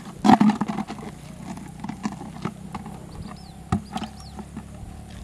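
A pole fishing line and float being lifted and recast into a muddy pond: a short splash about a third of a second in, then scattered light knocks and clicks from handling the rod. A few short, high bird chirps come around the middle, over a low steady hum.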